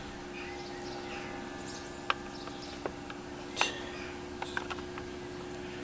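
Sharp clicks and knocks of strimmer parts and hand tools being handled during a strip-down, the loudest about three and a half seconds in, over a steady low hum.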